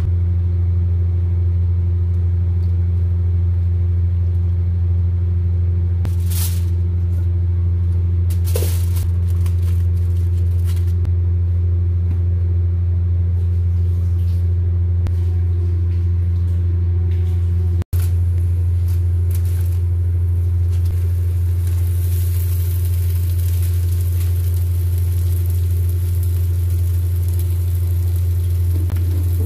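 A loud, steady low hum, broken by two sharp clicks about six and eight and a half seconds in. After a brief cut about 18 seconds in, a pan of cooked lamb sizzles softly beneath the hum.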